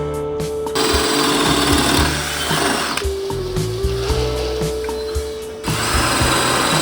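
A power tool running in two stretches, from about a second in to about three seconds and again from near six seconds, over background music.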